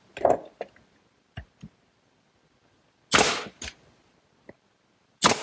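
Pneumatic finish nailer firing finish nails into the wooden frame: two loud, sharp shots about two seconds apart in the second half, after a few lighter clicks and knocks.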